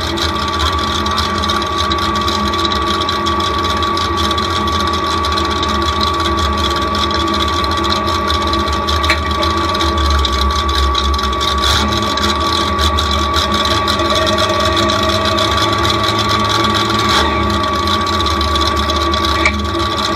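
Demolition derby truck's engine idling steadily, heard from inside the stripped cab, with a steady high whine over it.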